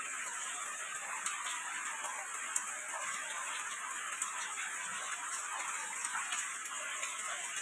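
Steady rain falling as an even hiss, with single drops now and then ticking out louder.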